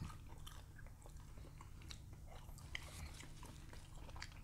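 Faint chewing of food, with small scattered clicks throughout and a low steady hum underneath.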